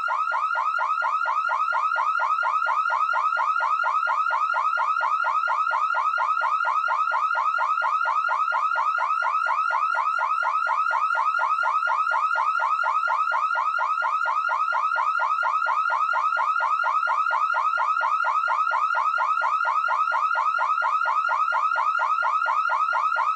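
Car alarm siren sounding continuously: a fast warbling tone that repeats several times a second without change, then cuts off abruptly at the end.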